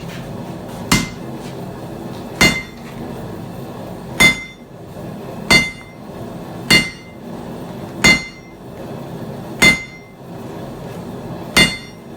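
Hammer blows forging a steel knife blade: eight single strikes, a second and a half or so apart, each with a short metallic ring, over a steady background hum.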